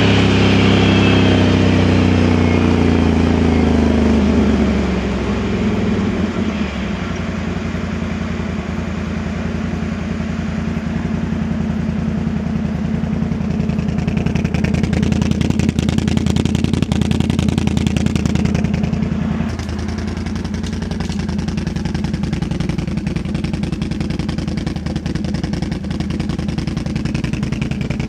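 Can-Am Outlander 1000 XMR ATV's V-twin engine through a dual slip-on exhaust. The revs fall over the first five or six seconds, then the engine runs steadily at low revs, a little louder for a few seconds in the middle.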